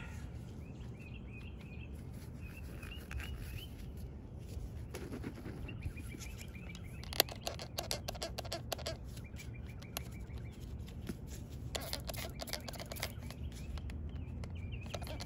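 Birds chirping in the background, with stretches of scratchy rubbing as a polishing pad is worked over a plastic headlight lens, and a single sharp click about seven seconds in.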